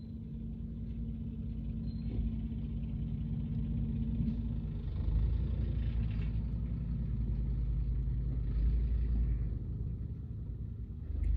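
A car engine running with a low, steady rumble that swells louder several times.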